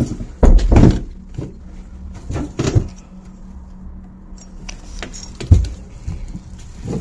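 Several dull thumps and knocks at irregular intervals: a loud cluster about half a second in, a smaller one near the middle, and a sharp one about five and a half seconds in.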